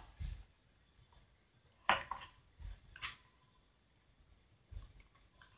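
Faint handling noises: a few short rustles and taps as play dough is pressed into a small plastic Play-Doh cup and the cup is picked up and turned in the hand.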